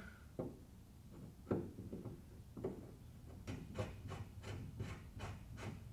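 Faint light clicks and taps of a powder-coated standoff being turned by hand into a bumper mount hole: a few separate clicks at first, then a quicker run of small ticks in the second half.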